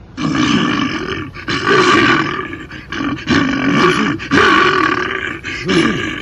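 A bear's growls: about five loud growling calls, each under a second, in close succession.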